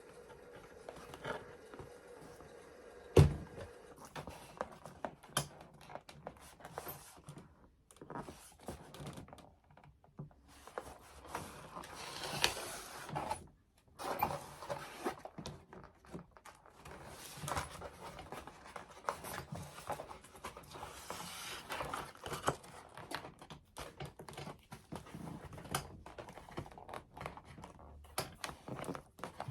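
Irregular handling noises of foam-board panels being fitted and glued: light scrapes, taps and rustles, with one sharp knock about three seconds in.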